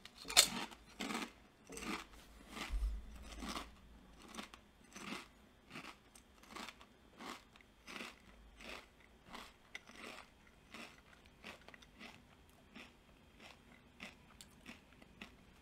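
A person biting into and chewing kettle-cooked potato chips: crisp crunches about two a second, loudest in the first few seconds and growing fainter as the chips are chewed down.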